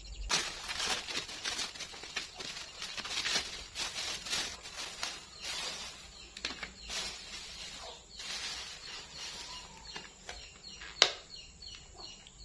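Clear plastic wrap and a thin black plastic bag crinkling and rustling as a parcel is unwrapped by hand, with one sharp click near the end.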